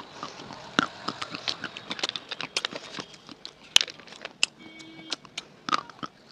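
Close-miked chewing and crunching of edible clay and chalk sticks: a dense run of crisp crackles and snaps, with one loud crack a little past the middle.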